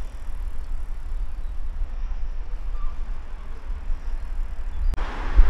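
Wind buffeting the microphone: a gusty low rumble with faint background noise behind it. About five seconds in there is a sharp click, and a louder, brighter hiss takes over.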